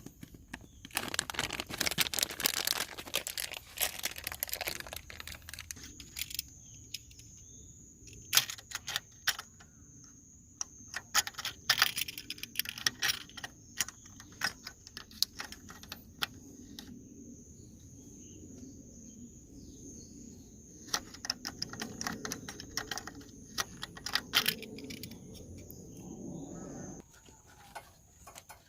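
Hands handling small parts and packaging: rustling for the first few seconds, then scattered sharp clicks and light taps, over a faint steady high whine. A low hum joins about three quarters of the way in and cuts off suddenly near the end.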